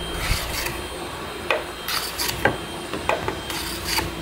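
Wooden-bodied hand plane being pushed in short, repeated strokes along a thin walnut strip, its blade scraping off shavings about twice a second.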